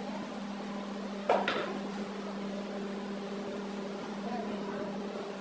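A steady, even-pitched electric hum, with one sharp metallic clink and a brief ring about a second in, from hand tools on the engine block's main bearing cap bolts.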